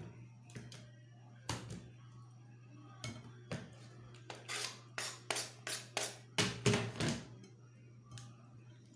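Kitchen knife on a wooden cutting board: a few scattered chopping taps, then a quick run of about eight scrapes, about three a second, as the blade scrapes cut raw needlefish off the board into a bowl. A steady low hum runs underneath.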